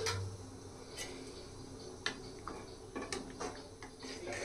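Metal ladle tapping and clinking lightly against an aluminium kadhai of thick dal, a handful of separate clicks, more of them toward the end as the ladle stirs.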